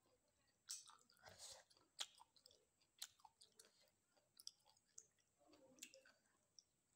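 Faint close-up chewing of a mouthful of rice and dried fish. Irregular sharp mouth clicks and wet smacks are heard, a few louder ones in the first three seconds.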